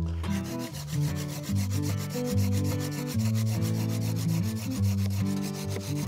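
Folding pruning saw cutting through a fallen branch, its teeth rasping through the wood in quick, even back-and-forth strokes.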